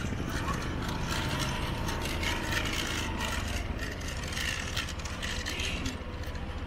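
Motorcycle running on the road, its engine's rapid low pulsing overlaid with a busy mechanical rattling and scattered clicks.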